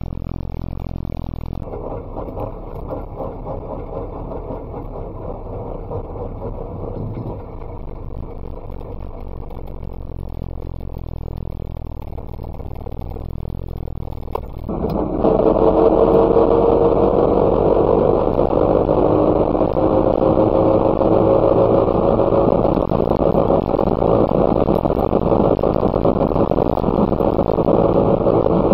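Messerschmitt KR200 bubble car's single-cylinder two-stroke engine running on the move. About halfway through it turns suddenly louder, and its pitch then climbs slowly as the car gathers speed.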